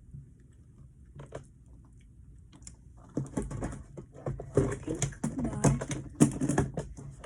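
Rummaging through a storage bin of slime supplies: a few faint clicks, then from about three seconds in a busy clatter of plastic bottles and containers being knocked about and picked over.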